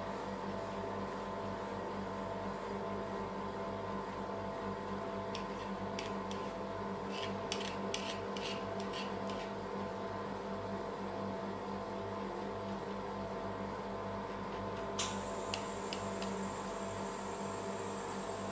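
Steady electrical hum of a rolled ice cream cold plate's refrigeration unit, holding several constant tones. Over it come a few light clicks and taps as avocado is scraped from its skin with a knife and dropped onto the steel plate, with one sharper click near the end.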